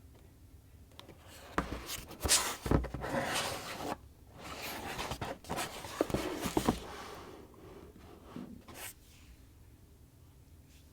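Action-figure packaging being handled up close: rustling and scraping with several sharp clicks and taps, busiest for about five seconds from a second and a half in, then one more click near the end.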